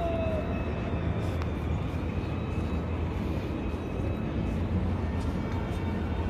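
Steady outdoor city background: a low, even rumble of traffic.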